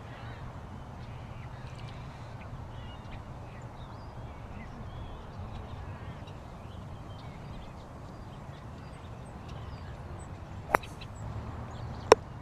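Outdoor bird ambience: faint scattered bird chirps over a steady low rumble, with two short sharp clicks near the end.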